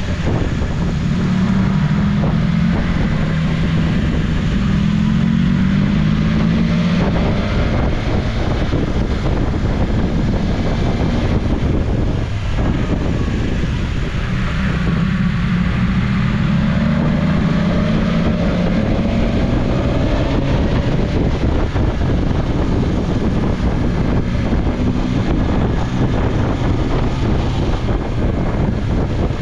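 BMW S1000XR's inline-four engine running under way, its note rising through the revs during the first several seconds and again midway, under steady wind rush on the microphone.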